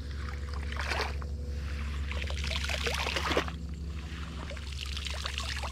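Water splashing and trickling in two spells, about half a second in and again from about two seconds to three and a half, over a steady low hum.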